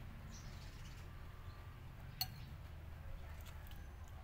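A metal spoon clinks once against a bowl about halfway through, with a few fainter ticks, over a low steady hum.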